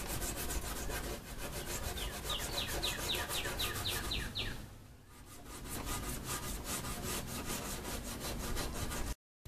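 Medium-grit sandpaper rubbed back and forth by hand over the white-painted wood of a coffee table, in quick even strokes about five a second. The strokes pause briefly about five seconds in, then resume.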